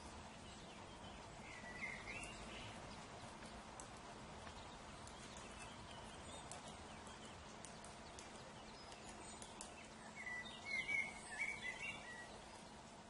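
Birds chirping: a short burst of chirps about two seconds in and a louder run of chirps near the end, over steady background noise. A few faint ticks come in between.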